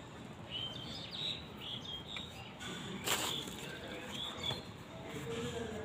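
Small birds chirping repeatedly in short high notes. A single sharp crinkle of newspaper sounds about three seconds in.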